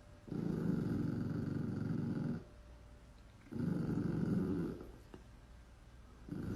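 A pet making rattling, snore-like breaths: three long pulses, each a second or two long, with short pauses between them.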